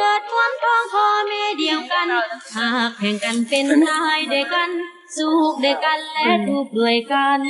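A woman singing a melody in held, wavering notes, with a brief break about five seconds in.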